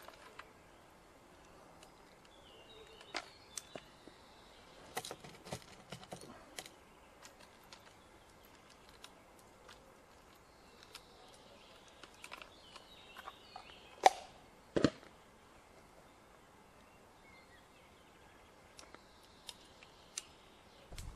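Scattered light clicks and knocks, two sharper knocks about 14 and 15 seconds in, over faint bird chirps.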